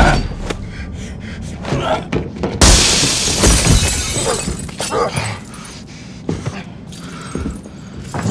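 Movie fight sound effects: a rapid run of hits and scuffles. About two and a half seconds in comes a sudden crash of shattering that fades over a second or so, followed by scattered lighter knocks.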